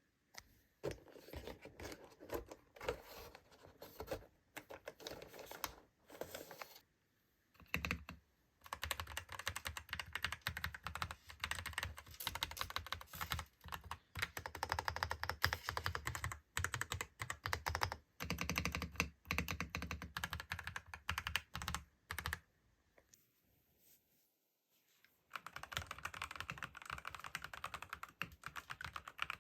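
Typing on an SPM PL87A 'Sea Salt' keyboard: fast runs of key clacks broken by short pauses, with a stop of about three seconds about three quarters of the way through before the typing resumes.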